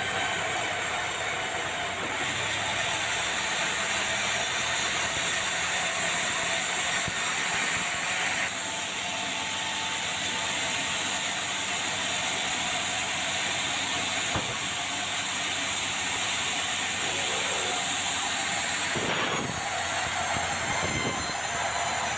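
Sawmill saw running steadily through a red meranti log, a continuous mechanical noise with a strong high hiss that shifts in character a couple of times as the cut goes on.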